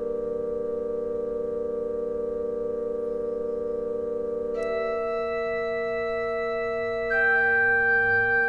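Yamaha PSR-E263 portable keyboard playing one of its built-in songs: long held chords with an organ-like tone. New notes come in about four and a half seconds in, and again near the end, where it gets louder.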